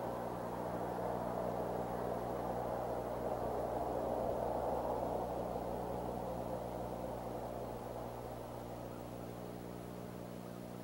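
Steady rushing noise over a constant low electrical hum, swelling slightly about four seconds in, then slowly fading.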